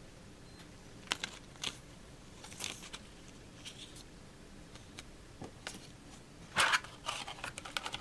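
Handling of a paper instruction leaflet and a clear plastic blister tray: scattered rustles and light clicks, with a louder crackle of plastic a little past two-thirds of the way through, followed by quick light ticks.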